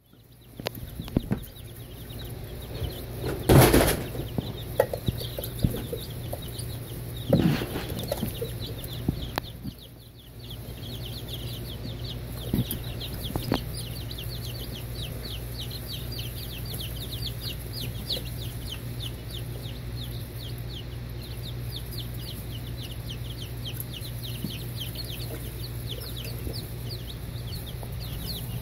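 A brood of baby chicks and turkey poults peeping continuously, many short high peeps that grow thicker after the first ten seconds, over a steady low hum. Two loud knocks come about three and a half and seven and a half seconds in.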